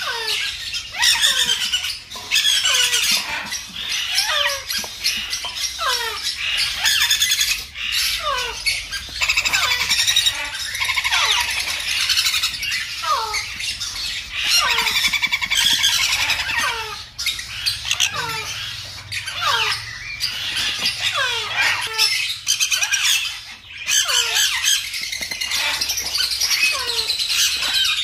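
Baby sun conures squawking over and over while being syringe-fed, a steady run of short, harsh calls that each drop quickly in pitch: the food-begging calls of hand-fed parrot chicks.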